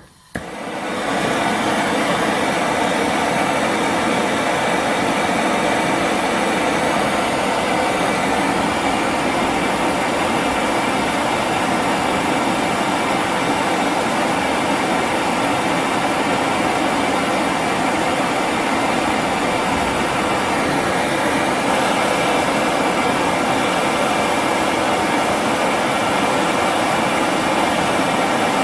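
Bullfinch LPG gas torch lit with a click and burning steadily with a loud, even rushing noise.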